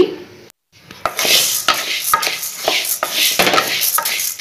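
Spatula stirring dry barley grains in a metal kadai. The grains rattle and scrape against the pan in about three strokes a second, starting about a second in: the barley is being dry-roasted.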